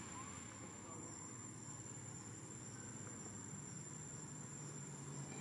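Insects in the forest canopy trilling as one steady high-pitched tone. A low hum comes in about three and a half seconds in.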